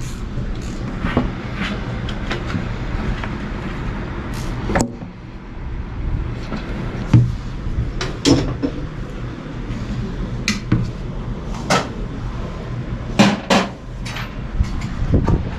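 Irregular knocks and clicks of hand work on a split air-conditioner installation, a sharp strike every second or two, over a steady low hum.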